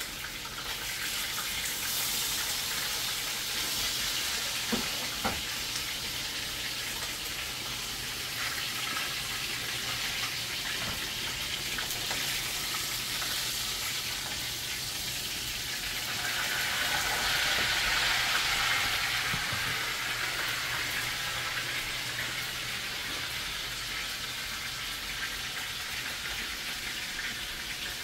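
Chicken pieces sizzling in hot oil in a frying pan as they brown: a steady hiss that swells louder about two-thirds of the way through, with a couple of light clicks near the start.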